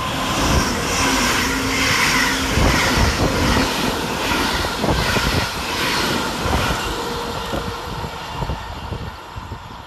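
Two coupled ScotRail Class 385 electric multiple units passing through at speed without stopping: a loud rush of wheels on rail and air that builds over the first second, holds for several seconds and fades as the train draws away.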